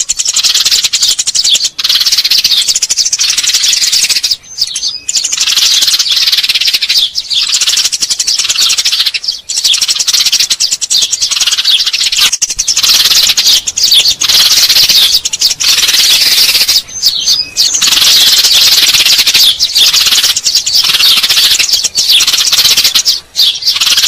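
Eurasian tree sparrows chirping: dense, continuous high chirps that overlap, with a few brief pauses.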